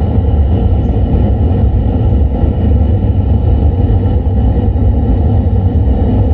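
A stack of sixteen 18-inch subwoofer cabinets with triple-magnet Betavo drivers being sound-checked at very high volume: a continuous deep bass that dominates everything, with a fainter distorted haze above it.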